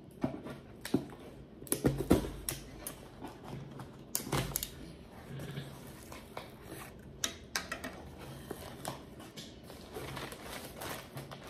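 Cardboard shipping box being opened: the taped flaps are cut and pulled open. Irregular sharp clicks, crackles and rustling of cardboard and tape are heard, loudest about two seconds and four and a half seconds in.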